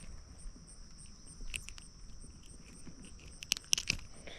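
Steady high-pitched insect trilling, like crickets, with a faster pulsing chirp above it. A few sharp clicks and taps break in, once about a second and a half in and more loudly near the end.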